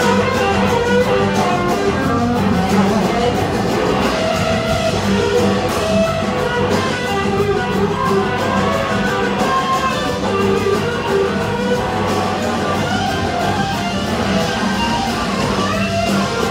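A live rock band playing, with an electric guitar on a red SG-style guitar to the fore over the drums and the rest of the band.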